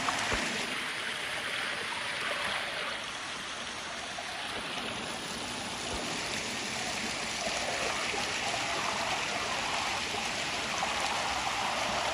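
Shallow rocky stream, its water running and trickling steadily over stones, with a few faint thuds.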